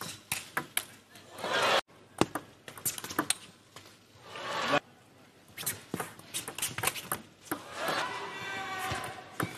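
Table tennis rally: sharp, irregular clicks of the ball striking rackets and table. Crowd noise swells twice, the first cut off abruptly just before two seconds in, and near the end a drawn-out shout rises over the crowd.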